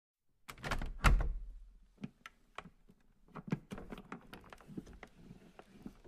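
Something vibrating and rattling against a wooden surface. A quick run of knocks starts about half a second in, with the loudest just after one second, followed by scattered lighter taps and rattles.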